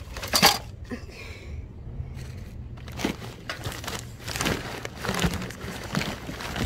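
Plastic bags, bubble wrap and cardboard packaging rustling and crinkling as a gloved hand rummages through them, with a loud crackle about half a second in and irregular rustling from about three seconds in.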